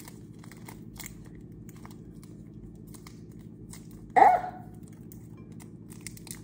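Faint crinkling and clicking of a plastic-wrapped cheese slice being peeled open by fingers with long nails, over a steady low hum. A brief, louder squeak falling in pitch comes about four seconds in.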